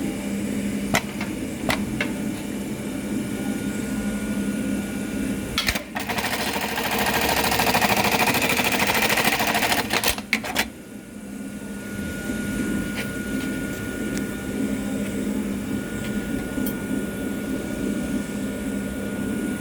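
Juki LK1920HA computerized bar-tacking machine stitching a tack pattern through a leather belt tab: a loud, dense, rapid stitching run of about four seconds in the middle, with sharp clicks before and just after it, over a steady machine hum.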